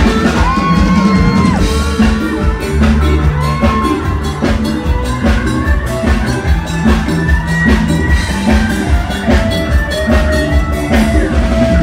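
Live band music played loud through a stage PA: a steady, heavy drum beat and bass under a gliding melody line.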